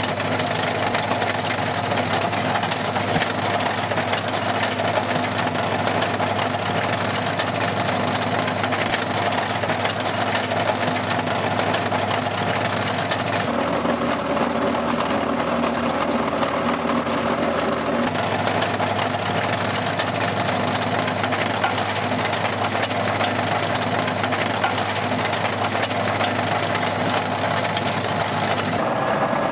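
Tractor engine running steadily under load, driving an AFT 100 trencher's digging chain as it cuts a trench through soil. The low hum drops away for a few seconds around the middle.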